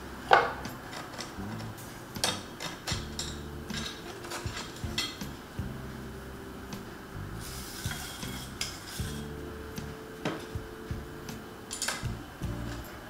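Porcelain, glass and clay teaware clinking and knocking on a wooden tea tray as pieces are picked up and set down, with the sharpest clink about half a second in and a brief rustle around the middle. Soft background music plays underneath.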